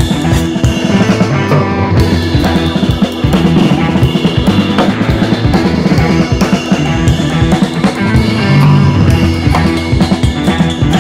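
Background music: an upbeat track with a driving drum-kit beat.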